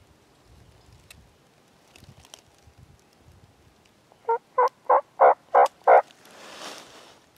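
A series of six turkey yelps, evenly spaced at about three a second, starting about four seconds in, followed by a soft rushing noise.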